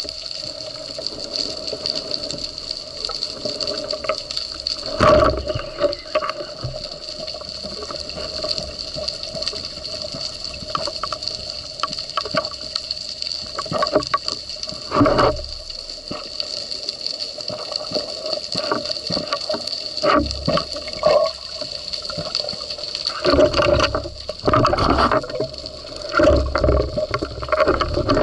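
Underwater recording: a steady watery hiss with a constant high whine, broken by irregular bursts of bubbling and splashing as a diver moves through the water.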